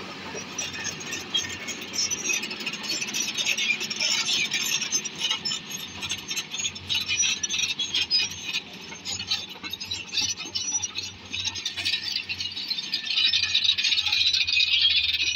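Bulldozer at work: continuous metallic rattling and squealing, typical of crawler tracks, over a steady low engine drone, growing louder near the end.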